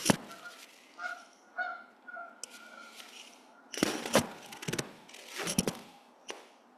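Short honking calls repeated about five times in the first two seconds, then a rustle and several sharp knocks and thumps on a lectern microphone as it is handled. The knocks are the loudest sounds, around four seconds in.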